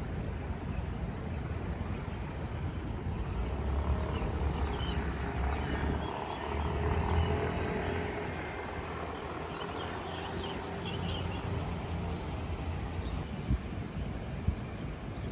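Outdoor ambience: a low vehicle rumble that swells and fades in the middle, with many short high chirps, likely birds, and a few sharp clicks near the end.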